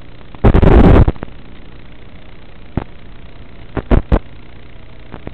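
Steady hiss broken by loud gusts of wind buffeting the microphone: one long gust about half a second in, and three short ones a little before the four-second mark.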